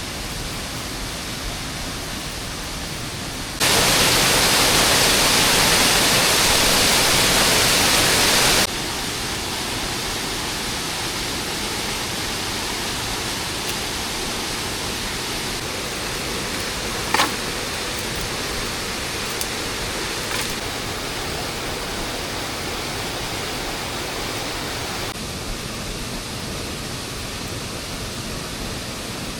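Steady hiss of falling rain, abruptly louder for about five seconds near the start. There is a single sharp click in the middle.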